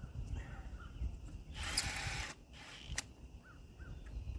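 A bird calling in short repeated notes, with a brief rush of noise about halfway through and a single sharp click about three seconds in.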